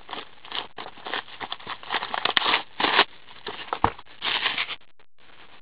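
Clear plastic wrapping of a hockey card pack crinkling and crackling in irregular bursts as it is handled and pulled from the box. It stops about five seconds in.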